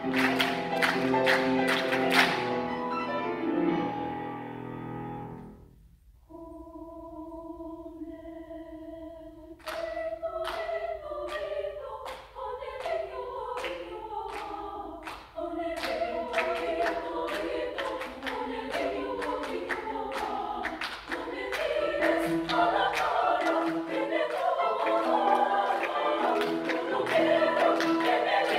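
Women's choir singing, with rhythmic hand clapping. The sound drops away briefly about six seconds in, the choir holds a steady chord, and the clapping picks up again with the singing about ten seconds in.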